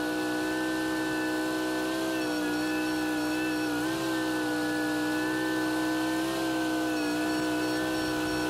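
Small engine of a compact hydraulic tree-work machine running steadily at high revs as it drives, its pitch dipping briefly a few times as it takes load.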